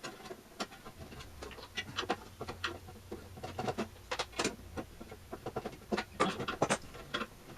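Irregular clicks, knocks and scrapes of hands and tools working on the signal generator's case, prying the brittle old power cord's strain relief loose, with a faint low hum in the middle.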